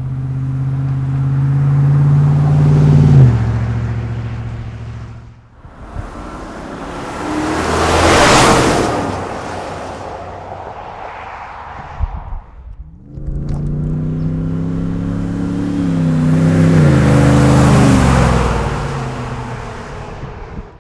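Chevrolet Silverado pickup's exhaust note under hard acceleration: the engine pitch climbs, then drops at an upshift about three seconds in. The truck rushes past around eight seconds in, and from about thirteen seconds a second acceleration run climbs again with a couple of gear changes.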